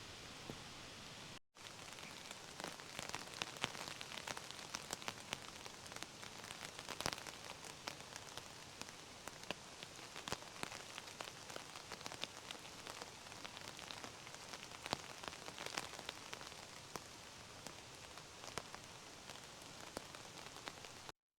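Steady rain falling, with many separate drops striking close by over an even hiss. The sound cuts out for a moment about a second and a half in.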